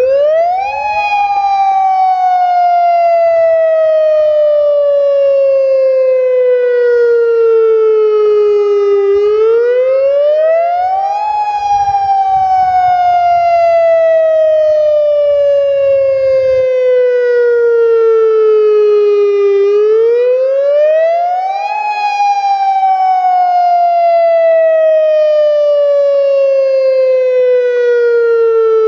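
Federal Signal Modulator 4016 outdoor warning siren starting up and sounding its wail tone in a scheduled test. The pitch rises quickly over about a second and a half, then falls slowly for about eight seconds, and this repeats about three times.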